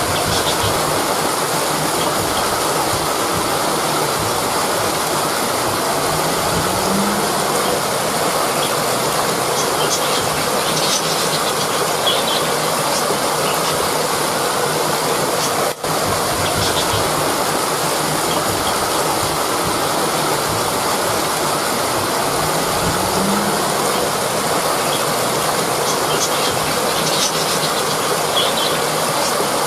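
Rushing river water flowing steadily, an even, unbroken rush of noise, with a brief dropout about sixteen seconds in.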